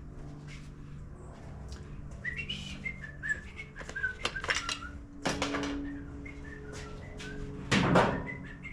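A person whistling a tune in short notes while handling engine parts, with scattered clicks and knocks and a louder knock near the end, over a steady low hum.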